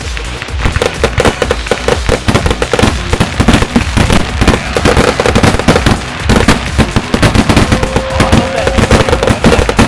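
Fireworks display going off in a dense barrage: rapid, overlapping bangs and crackles, many per second.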